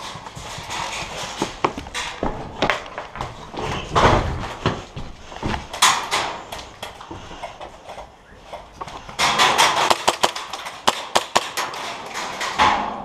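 Footsteps crunching over dry leaves and a debris-strewn floor, a string of sharp clicks and knocks, thickening into a dense rapid run of knocks in the last few seconds.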